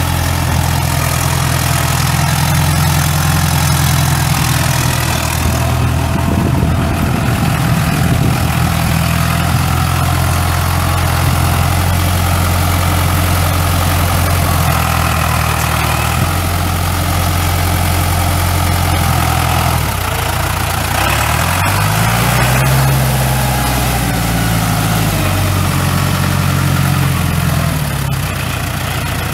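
1997 New Holland 6640SL tractor's four-cylinder diesel engine idling steadily. About three-quarters of the way through it revs up, holds the higher speed for several seconds, then drops back to idle.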